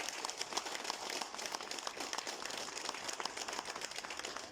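A crowd applauding, the clapping slowly thinning and fading.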